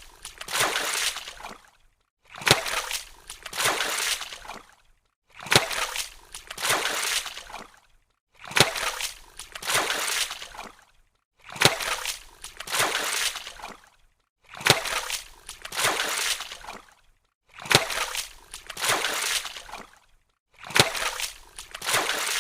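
Water splashing: a sharp hit followed by about two seconds of splash and slosh, the same splash repeating every three seconds or so with short silences between.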